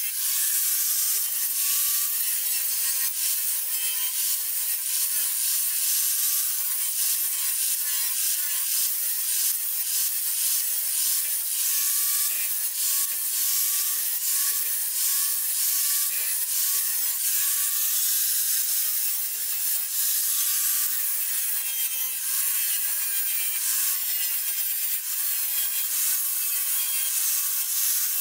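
Angle grinder grinding down weld on a repaired steel wheel tub: a continuous harsh hiss of the abrasive disc on metal over the motor's whine, which dips in pitch and recovers again and again as the disc is pressed in and eased off.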